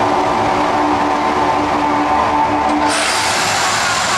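Mirage volcano show erupting: a steady deep rumble with a few held tones, then about three seconds in a sudden loud hissing whoosh as the gas flame jets burst into a fireball.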